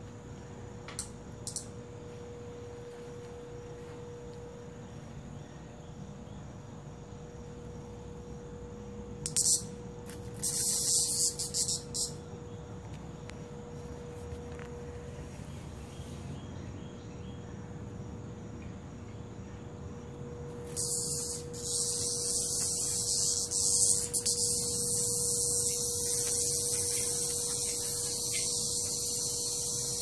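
Cicada buzzing: short high-pitched bursts about ten seconds in, then a continuous buzz from about twenty seconds on. A steady hum runs underneath throughout.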